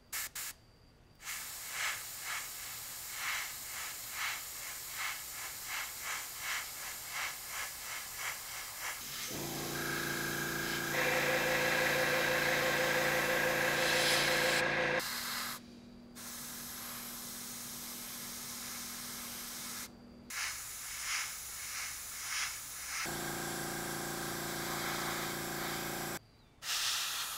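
Airbrush spraying primer in short hissing bursts, about two a second, with an air compressor's motor humming steadily behind the spray for stretches in the middle and near the end.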